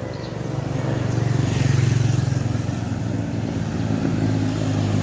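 A motor vehicle's engine running, growing louder until about two seconds in and then holding steady.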